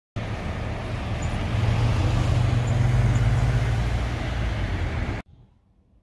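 Road traffic noise with a low rumble, a vehicle passing close by, cutting off abruptly about five seconds in.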